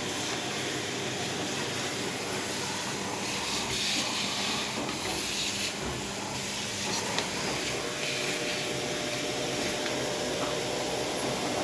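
Vacuum cleaner running steadily with a hissing rush of air.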